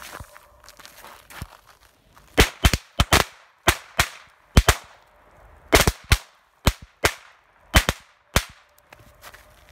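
A bundle of stick firecrackers lit from a single fuse going off one after another: about a dozen sharp bangs at uneven intervals, starting about two seconds in and lasting about six seconds.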